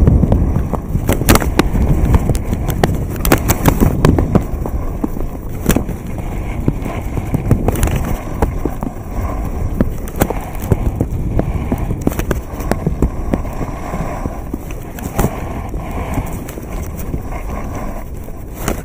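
Skis sliding and scraping over hard groomed snow at speed, with many sharp edge scrapes and wind rumbling on the microphone; loudest over the first several seconds, easing later.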